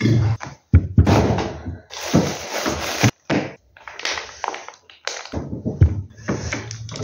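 Plastic bread bag crinkling and rustling as sliced bread is handled, with thunks and knocks on a table. The sound stops dead for a moment a few times.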